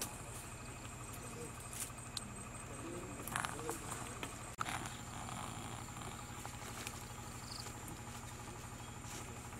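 Faint outdoor ambience with a steady high insect drone, a few soft low calls around the middle, and a couple of brief clicks.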